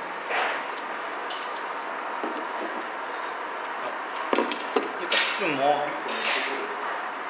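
Metal chopsticks clinking against a stainless steel bowl, then a few sharp knocks as the bowl is set down on the table with the chopsticks across it, followed by two short scrapes and a brief squeak.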